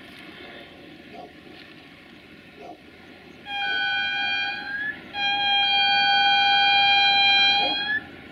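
Horn of an approaching CFR class 64 'GM' diesel locomotive sounding two blasts: a shorter one about three and a half seconds in, then a longer one of about three seconds. Each blast slides slightly up in pitch as it cuts off.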